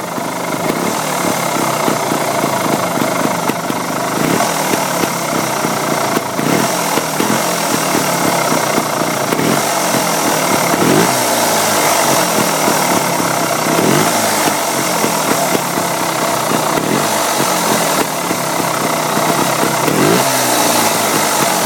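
Beta Rev 3 trials motorcycle's two-stroke single-cylinder engine running, with a wavering purr ('ruuuururururu') whose low rumble sweeps up and down every few seconds. The owner is unsure whether this is normal.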